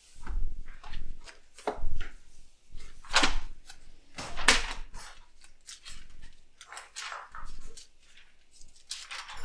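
Thin pages of a thick Bible being flipped over by hand, one after another: a series of quick papery swishes and rustles at uneven intervals.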